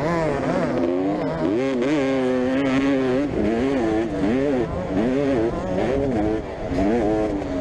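Motocross motorcycle engine racing, its pitch climbing and dropping again and again as the throttle is opened and closed.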